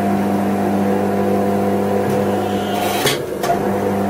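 Forging press's motor running with a loud, steady hum as hot steel sits under the die. A short hiss and a click about three seconds in.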